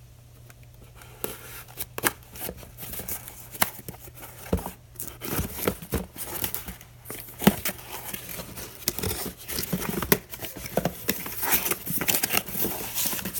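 Parts packaging being torn open and unwrapped by hand: crinkling and tearing with many sharp clicks, busier and louder from about five seconds in.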